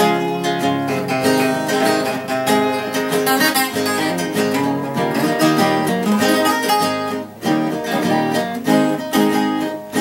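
Instrumental break of Brazilian country music: a viola caipira, the ten-string Brazilian folk guitar, picks a run of melody notes over a strummed acoustic guitar accompaniment.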